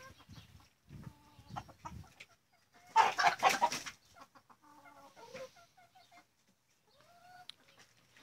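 Chickens clucking in short, scattered calls, with a louder, harsher outburst about three seconds in.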